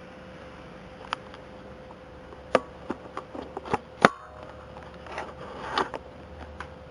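Dachshund hiccuping: a string of short, sharp hiccups at uneven intervals, the loudest about four seconds in, followed by two softer, breathier ones near the end.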